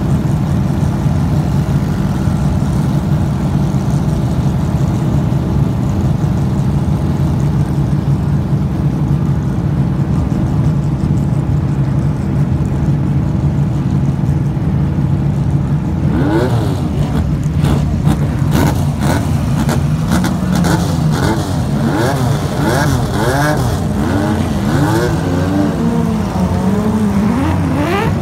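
A grid of vintage IMSA race cars running together on pit road, a steady deep engine drone. From a little past halfway, engines rev and the cars pull away one after another, each rev a rising and falling sweep in pitch.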